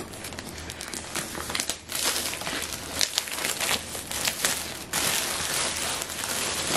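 Clear plastic shrink wrap being peeled and pulled off a MacBook Pro box, crinkling and crackling, louder from about two seconds in.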